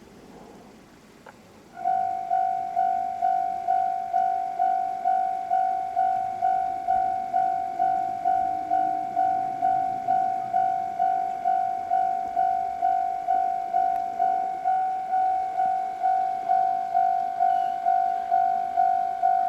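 Japanese railway level-crossing alarm bell starts about two seconds in and rings steadily at about two strikes a second, each strike a single ringing tone that fades before the next. It is the warning that a train is approaching the crossing.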